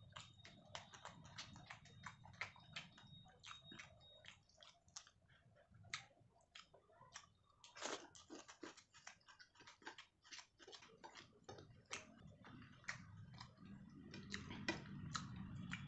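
Close-miked eating: quiet chewing of fish and rice, with a fast, irregular run of small wet mouth clicks and smacks. Near the end, softer squishing as fingers mix rice and curry on the plate.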